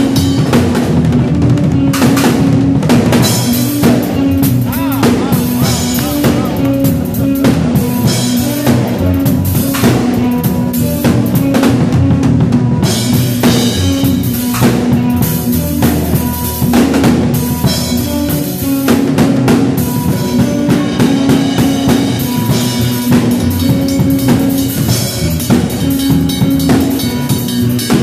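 Loud music led by a drum kit, with kick drum, snare and rimshot hits over a repeating low melodic line.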